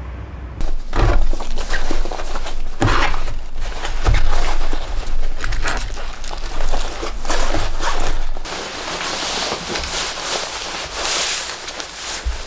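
Close handling and packing noises: fabric bag and gear rustling, with knocks and thuds as things are picked up and set down, busiest up to about eight seconds in and then a lighter, more even rustle of cloth.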